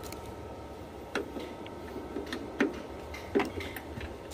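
A few sharp clicks and taps from handling cables and equipment, the loudest about a second in, near the middle and near the end, over a faint steady hum.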